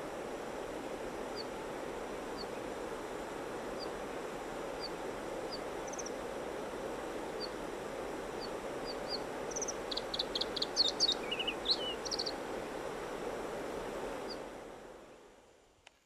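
Bluethroat singing: single thin high notes spaced about a second apart, then a short burst of rapid, varied notes about ten seconds in, over a steady background rush. All of it fades out near the end.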